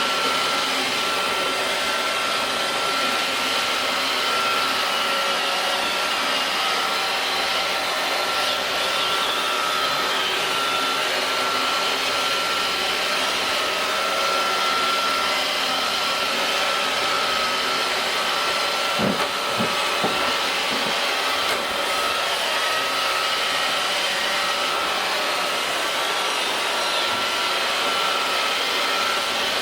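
iRobot Roomba robot vacuum running on a door mat: a steady motor whir with a thin high whine, and a few short knocks about two-thirds of the way through.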